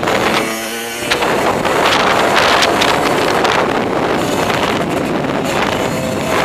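Motocross bike engine running at speed, mostly buried under heavy wind buffeting on the microphone. Its pitched note stands out briefly about half a second in.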